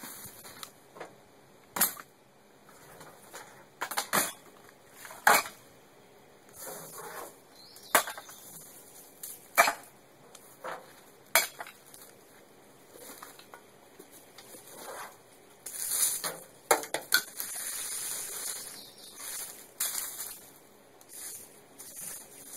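Irregular clatter of knocks and metallic clinks as objects are handled and moved around the front of an old van, with a stretch of rustling hiss about sixteen seconds in.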